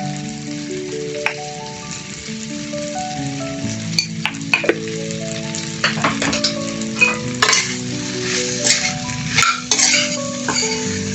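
Food sizzling in a frying pan while it is stirred, with a spatula clicking and scraping against the pan every second or so. A soft background melody plays underneath.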